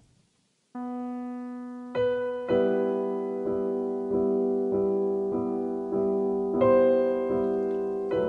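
Background piano music: after a brief silence, notes begin about a second in, then chords are struck in a steady rhythm about twice a second.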